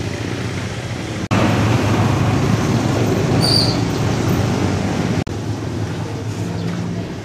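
Steady vehicle noise, a low rumble with hiss. It jumps louder at an abrupt cut about a second in and drops back at another cut about five seconds in.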